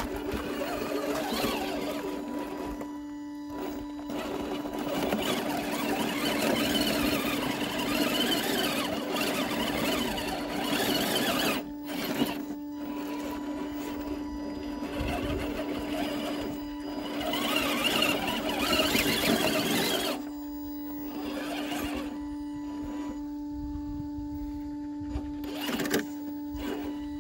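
Scale RC rock crawler's electric motor and geared drivetrain whirring as it climbs rock, in spells of heavier throttle, with a steady hum underneath; the drive eases off for the last several seconds apart from one brief burst.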